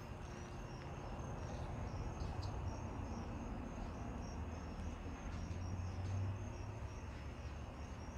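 Crickets chirping in a steady, evenly repeating high-pitched rhythm over a low rumble.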